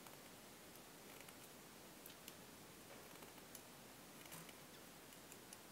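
Near silence: faint, irregular small clicks and ticks of needle-nose pliers gripping and bending thin wire, over a low steady hiss.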